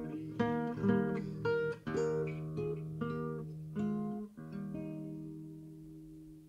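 Guitar accompaniment playing the closing bars of a Scottish folk song after the singing ends: a few plucked notes and strums, then a final chord left to ring and die away.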